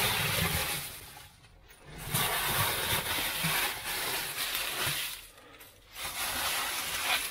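Dry fallen leaves rustling and crackling as they are grabbed by hand and scooped off a vehicle's plastic floor, in three spells with short pauses between.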